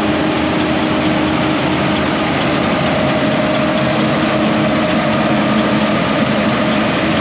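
International Harvester 1480 combine running steadily under harvest load, heard from inside the cab: a constant engine and machinery drone with a steady whine over it.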